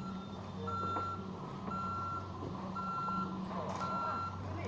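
Vehicle reversing alarm beeping about once a second, four beeps in all, over a steady low engine hum.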